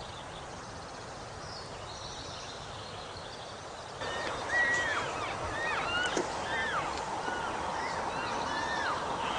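Outdoor ambience with a steady hiss; about four seconds in, a series of short calls begins, each rising and then falling in pitch, about eight of them.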